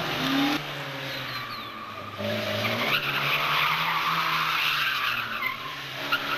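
Rally car engine running hard and revving up and down, with tyres skidding and scrabbling; the sound changes abruptly a few times.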